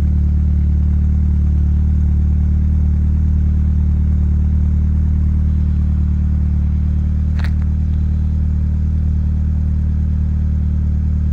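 Volkswagen MK7 GTI's 2.0-litre turbocharged four-cylinder idling steadily through a CTS turbo-back exhaust with a catted downpipe: an even, low exhaust drone with no revving. One short click sounds about seven and a half seconds in.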